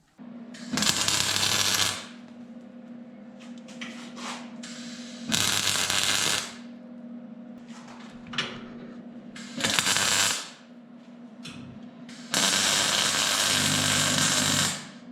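Electric arc welder laying four short weld runs on steel door hinges, each a burst of loud crackling arc, the last and longest about two and a half seconds, with the welder humming steadily between runs.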